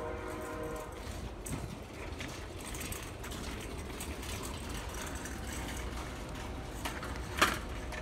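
A held multi-note horn chord that stops about a second in, then the steady rumbling rattle of a line of nested shopping carts rolling over parking-lot pavement, with a sharp metal clank near the end.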